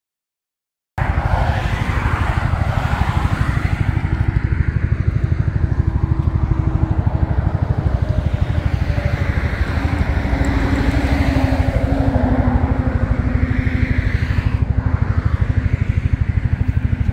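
An engine running steadily, with a rapid, even pulsing; it starts suddenly about a second in.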